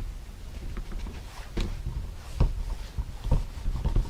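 Silicone collapsible dog bowl being handled and pushed on a surface: a few soft knocks and rubbing sounds, three of them louder, over a low rumble.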